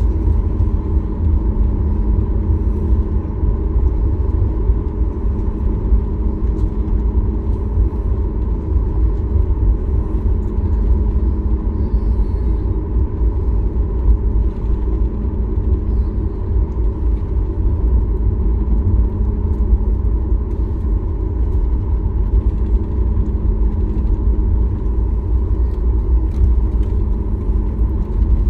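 Steady cabin rumble of a Boeing 737 MAX 8 airliner with its engines running, heard from inside the cabin: a deep, even drone with a faint steady hum over it.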